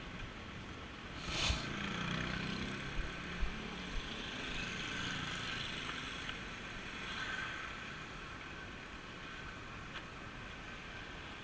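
A motor vehicle's engine running, with one brief loud rush of noise about a second and a half in.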